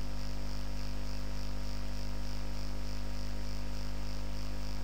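Steady electrical mains hum, a low drone with evenly spaced overtones. A faint high buzz pulses several times a second over it.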